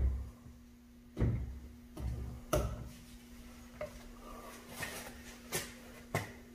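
Knife point jabbed through a glove into a wooden cutting board: four dull knocks in the first three seconds, then a few lighter clicks.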